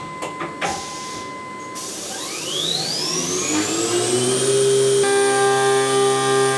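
Optimum F-150 CNC milling machine spindle spinning up: a whine rises in pitch for a couple of seconds and levels off high. About a second later, steady tones join it as the end mill starts rough-milling an aluminium block.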